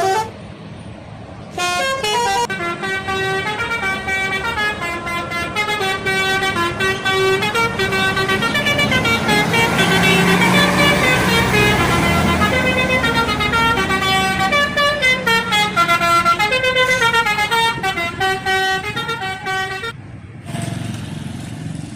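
Bus telolet horn playing a long multi-note melody that steps up and down in pitch, with engine noise swelling around the middle; it stops about two seconds before the end.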